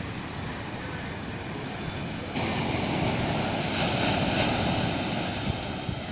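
Steady rushing noise with a jittery low rumble, typical of wind buffeting the microphone outdoors. It jumps louder abruptly about two and a half seconds in.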